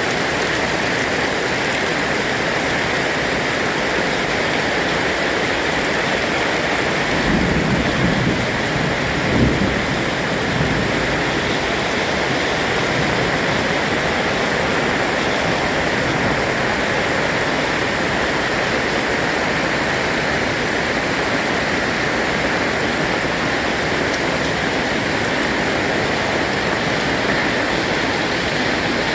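Heavy rain falling steadily, with a low rumble of thunder swelling about seven seconds in and fading by about ten seconds.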